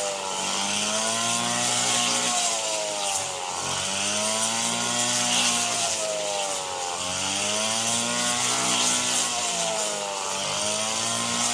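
Small engine of a rice-harvesting machine running hard, its pitch dipping and rising again about every three and a half seconds as the load changes, with a steady hiss over it.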